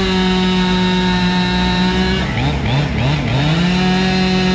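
Two-stroke chainsaw held at full throttle for about two seconds, then let off with a few quick throttle blips before revving back up to full speed and holding it.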